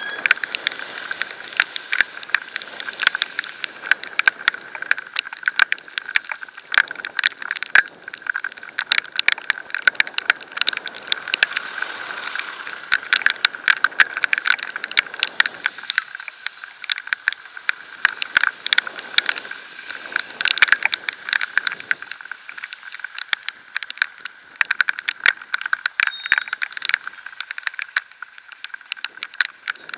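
Heavy rain drops pelting the camera at riding speed on a bicycle in a downpour: a dense, irregular patter of sharp clicks over a steady rushing hiss of wind and spray, with a thin steady high tone underneath.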